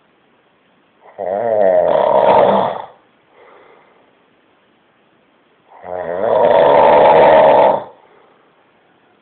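A man snoring heavily in his sleep: two loud snores, each lasting about two seconds and about four and a half seconds apart, with a faint breath out after the first.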